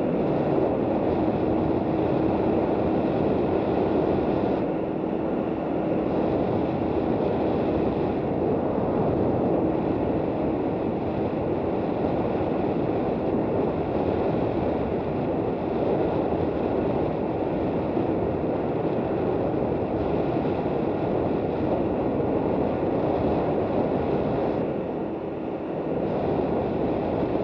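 KTM 990 Adventure's V-twin engine running at a steady cruise under a steady rush of wind over the microphone, the sound dipping briefly near the end.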